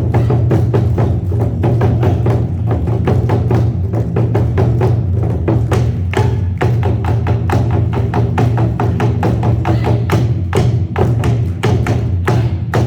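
Korean barrel drums (buk) beaten in a fast, dense rhythm of sharp stick strikes, over a steady low hum.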